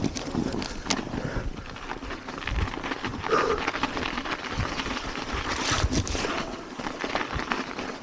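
Mountain bike riding over rough ground: irregular rattles and knocks over a steady rush of wind on the microphone.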